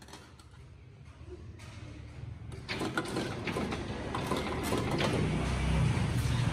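Spot welding machine buzzing and clacking as stainless steel sheet pieces are welded onto a basket frame, with metal parts clinking as they are handled. It starts quietly and grows louder about three seconds in.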